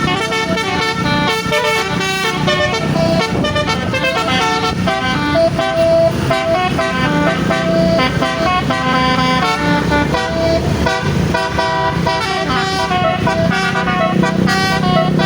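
Basuri telolet musical air horn on a bus playing a tune in quick stepped notes, repeated without a break, over the low rumble of the bus and traffic.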